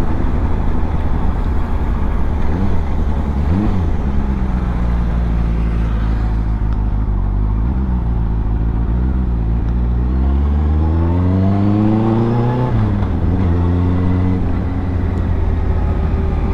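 Benelli 600i's inline-four engine running as the motorcycle rides along, its note mostly steady. About two-thirds of the way through, the engine pulls under throttle with the pitch rising steadily for a couple of seconds, then drops sharply at an upshift and settles again.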